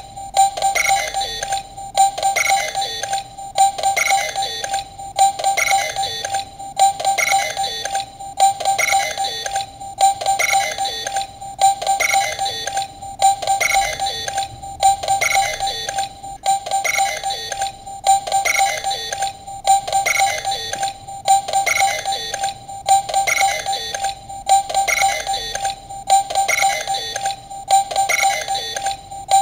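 Bandai DX Mega Ulorder toy's standby sound: a short electronic beeping phrase looping over and over at an even pace.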